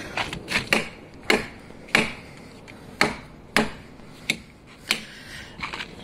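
CRKT Seismic folding knife with the Ikoma Deadbolt lock being opened and closed repeatedly, giving a string of sharp clicks about half a second apart.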